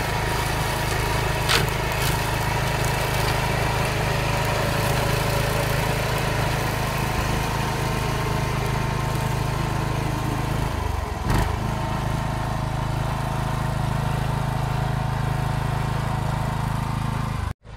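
DAKR two-wheel tractor with a front rotary mower, its engine running steadily under load while the mower cuts dry grass. Two short sharp knocks come through, about a second and a half in and again about eleven seconds in.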